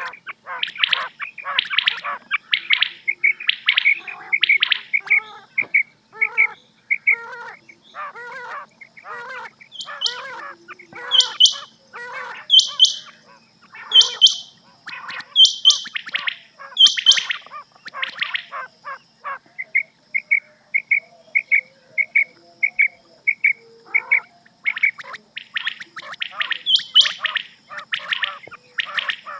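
Rain quail calling: many short, sharp, repeated whistled notes from several birds overlapping. The loudest, highest notes come about every second and a half in the first half, and a quick run of evenly spaced notes comes around the middle.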